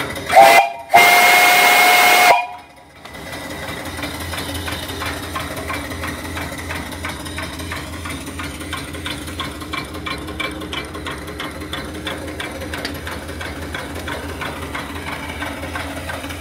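Antique brass three-chime steam whistle blown twice on about 55 psi of boiler steam: a short toot, then a longer blast of a few steady tones sounding together, cut off sharply. After it, the small steam engine and its engine-driven feed pump keep running with a steady, rapid knock.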